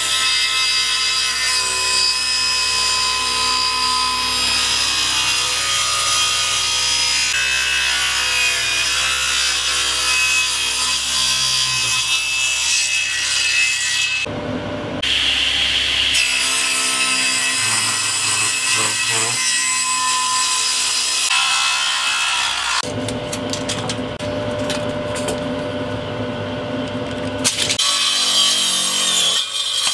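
Table saw ripping ash hardwood boards, the blade running steadily under load with a noisy whine. The sound changes abruptly between passes, about halfway through and again about three-quarters through.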